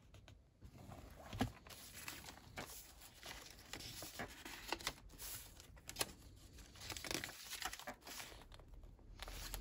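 Paper pages of a handmade junk journal being turned and handled: soft rustling and crinkling of paper with a few light clicks and taps.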